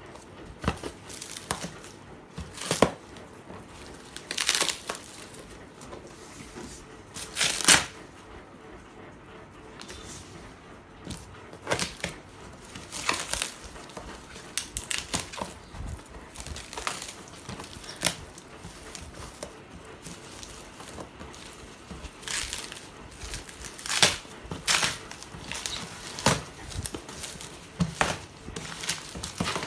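Helmet packaging being handled and opened by hand: irregular bursts of tearing and crinkling, with occasional sharp knocks.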